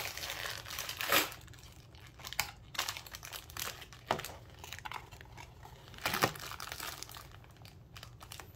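Blind-box toy packaging being opened by hand: irregular crinkling and tearing of the wrapper, with louder rustles about a second in and about six seconds in.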